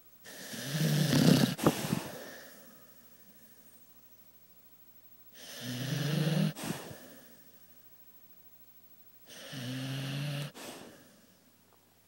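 A dog snoring in its sleep: three long, rattling snores about four to five seconds apart, each ending abruptly.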